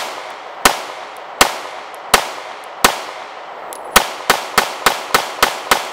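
Springfield Armory Hellcat 9mm micro-compact pistol firing about a dozen shots, each with a short echoing tail. The first five come slowly and evenly, about 0.7 s apart; after a pause of about a second comes a fast string of about seven shots, roughly three a second.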